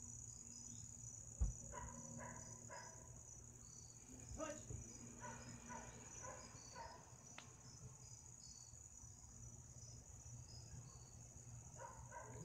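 Crickets chirping at night: a steady high-pitched trill with short chirps repeating over it, faint. A single soft bump sounds about a second and a half in.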